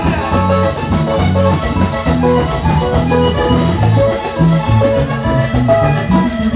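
Live Colombian accordion band playing an instrumental passage with no singing: button accordion melody over electric bass, guitar and congas and hand drum keeping a steady upbeat rhythm.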